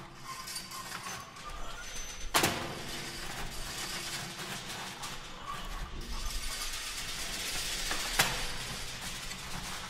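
Metallic foil being crumpled and rustled, a dense crackling texture, with two sharp knocks: one about two and a half seconds in and one near the end. A low rumble sits underneath from about a second and a half in.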